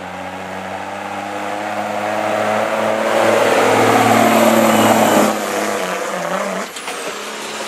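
Diesel semi truck pulling a sled under full load, its engine note climbing and growing louder as it comes past, then dropping in pitch and fading after about five seconds in.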